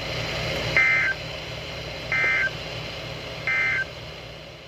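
Three short, buzzy high-pitched data bursts of EAS SAME tones, about a second and a half apart, over a steady hiss: the End of Message code that closes an emergency alert broadcast.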